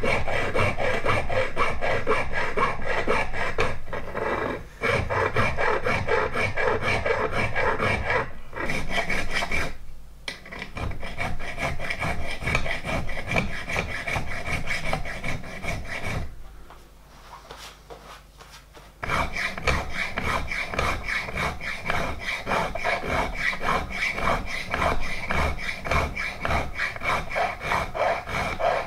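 Hand file rasping back and forth across metal valve-gear lifting links clamped in a bench vice, in quick repeated strokes. There are a few brief breaks and a longer lull of about two and a half seconds past the middle.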